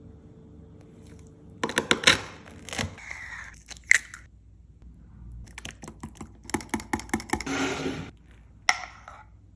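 Food-preparation handling sounds: clusters of sharp clicks and taps with a short stretch of scraping near the end.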